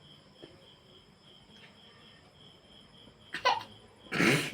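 Crickets chirping faintly in a steady pulsing rhythm, then near the end two short, sudden vocal bursts from a person, the second louder and breathier, an explosive outburst like a sneeze or a burst of laughter.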